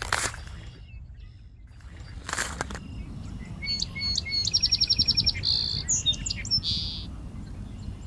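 Songbirds singing: a rapid trill of high repeated notes about four seconds in, followed by two short buzzy notes. Two brief rushes of noise come before the song, one at the very start and one just past two seconds.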